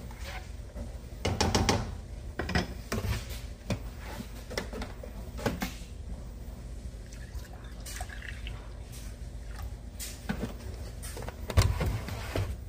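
Spatula stirring and scraping through thick sausage gravy in a stainless steel pan, with scattered clicks and knocks and a louder knock near the end, over a steady low hum.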